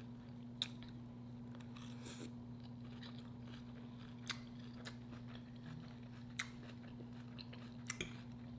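Close-miked chewing of a cabbage, sausage and shrimp stir fry: soft mouth sounds with a handful of short sharp ticks spread through, over a steady low hum.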